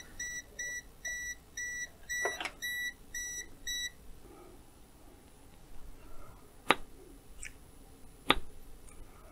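Kaiweets HT118A multimeter's non-contact voltage detector beeping, a high-pitched beep about three times a second, signalling that it senses the live conductor of a 220 V mains plug; the beeping stops about four seconds in. A few sharp clicks follow, the loudest near the end.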